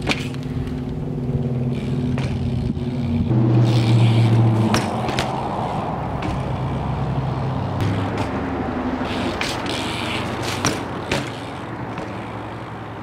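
BMX bike riding on concrete: tyres rolling and scraping, with several sharp clacks from the bike, the loudest near the end, over a steady low hum.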